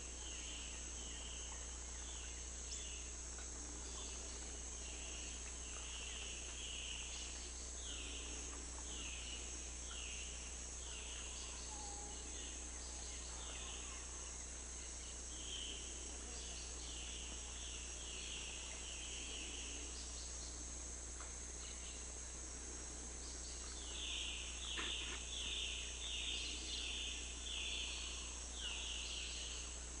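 Tropical forest insect chorus: a steady high-pitched drone, with a louder chirping call repeated about once a second in runs, strongest in a run near the end. A faint low steady hum lies underneath.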